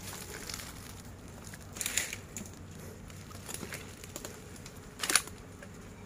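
Dry nipa palm fronds and leaf litter rustling and crunching as someone moves through them, with two louder crunches, about two seconds in and about five seconds in.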